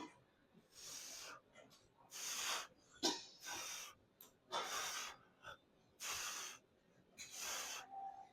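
A person breathing hard, with short, hissy breaths in and out about every second and a half. A single sharp knock comes about three seconds in.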